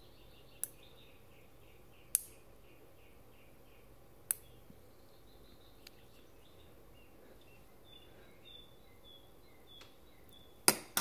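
Fine metal tweezers clicking against small laser-cut card parts as they are folded and pressed into place: a few sharp clicks spaced one to two seconds apart, the loudest a double click near the end.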